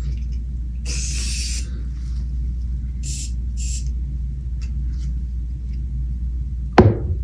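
Aerosol hair mousse hissing as foam is dispensed: one longer hiss about a second in, then two short ones a couple of seconds later, over a steady low hum. Near the end comes a single sharp knock, the loudest sound.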